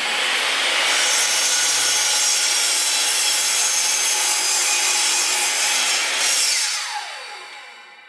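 Metabo sliding mitre saw cutting through a block of wood, its motor and blade running steadily under load. About seven seconds in, the trigger is released and the motor winds down, its pitch falling as it fades.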